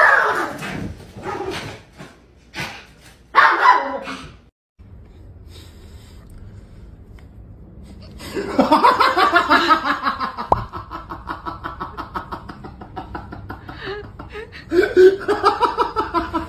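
A person laughing hard in long runs of rapid, rhythmic bursts, starting about 8 seconds in and pausing briefly near the end. Before it come a few short pitched animal sounds.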